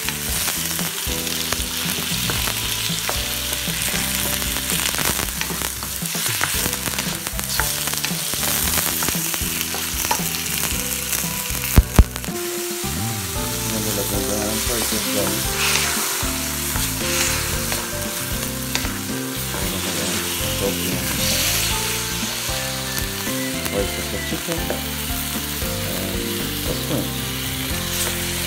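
Chicken and shrimp with onion and garlic sizzling in hot oil in a wok, stirred and turned with a wooden spatula. Two sharp knocks close together a little before halfway.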